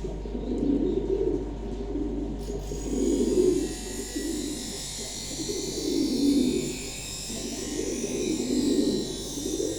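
Domestic pigeons cooing over and over, low rolling coos about every second. A steady high hiss joins about two and a half seconds in.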